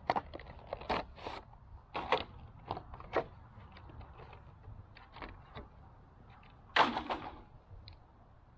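Scattered clicks and knocks of wiper blades being handled and turned over, with a louder clatter about seven seconds in.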